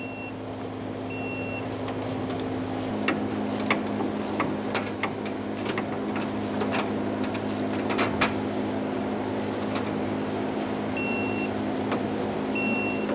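A ratchet and socket tightening the fuel tank strap bolts, with scattered sharp clicks in the middle. Two short high beeps at the start and two more near the end, as a digital torque wrench signals that the 46 foot-pound setting is reached. A steady low hum runs underneath.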